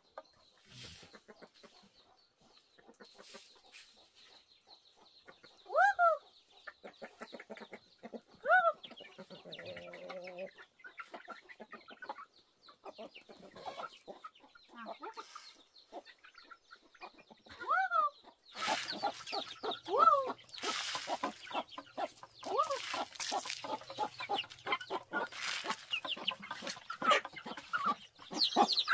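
Hens clucking, with a few separate arching calls that rise and fall in pitch. From about two-thirds of the way in, a rapid, dense clicking of beaks pecking scattered grain off a mat joins the clucking.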